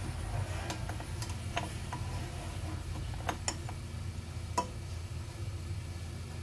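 Irregular light clicks and taps of a plastic pouring shield being lifted off a stand mixer, knocking against the dough hook and the stainless steel bowl, over a steady low hum. The loudest tap comes a little after the middle.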